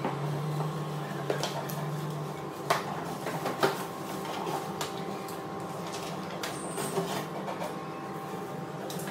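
Books and a cardboard box being handled: scattered knocks and rustles as books are lifted out of the box and set down, the sharpest knocks a little under 3 and 4 seconds in, over a steady faint hum.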